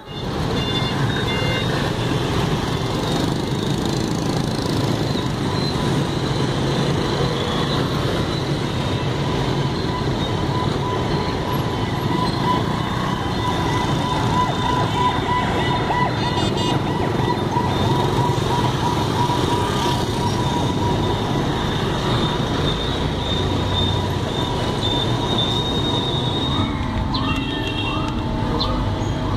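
Busy street traffic dense with motorbikes, a steady din that holds throughout.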